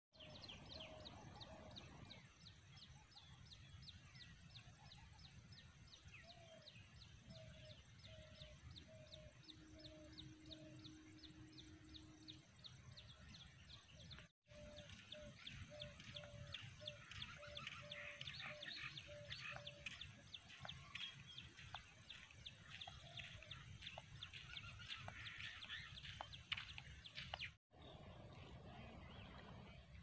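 Faint rural outdoor ambience: rapid high chirping of birds or insects, and a bird's series of low hooting notes about two a second, heard in two runs, over a low wind rumble.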